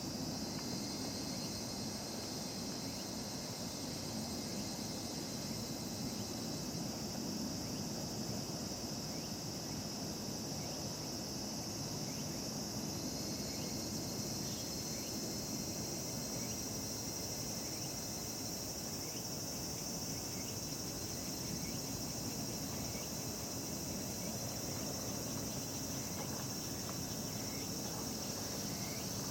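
A chorus of cicadas, among them higurashi (evening cicadas), calling in a steady, unbroken high-pitched shrill.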